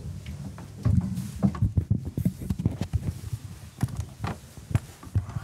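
Irregular clicks and soft knocks with low thuds, the handling noise of someone settling at a desk with microphones; the thuds are densest in the first two seconds.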